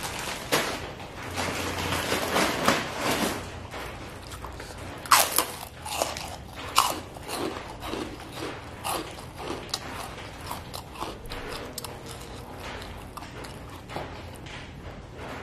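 A person biting and chewing crunchy food close to the microphone: a dense run of crunches at first, two louder sharp crunches about five and seven seconds in, then smaller, sparser crunches and mouth clicks.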